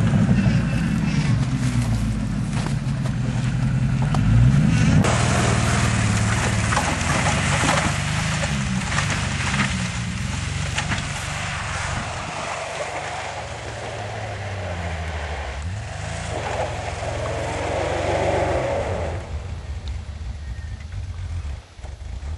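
Jeep CJ-7 engine revving hard under load as it climbs a steep snowy slope, pitch rising and falling repeatedly, with a dense rushing noise of tyres churning through snow and dirt. The sound drops away in the last few seconds.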